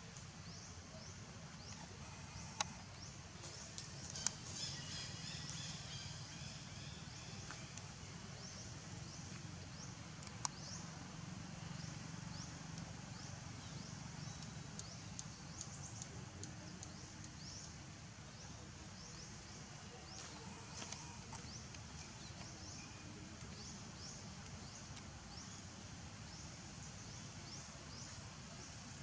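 Forest ambience: a steady low background hum with a fast, repeating high-pitched chirping throughout, and a few sharp clicks in the first ten seconds.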